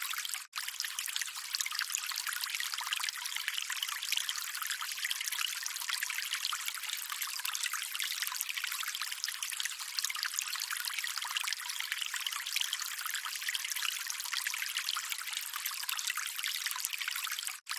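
Running water trickling steadily, a light hiss with no low rumble. It cuts out for a split second about half a second in and again near the end.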